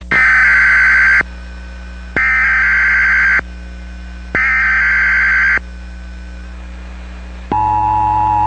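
Emergency Alert System header tones: three harsh, buzzing digital data bursts about a second long each, with a second's gap between them. About seven and a half seconds in, the steady two-tone EAS attention signal starts, all over a constant low hum.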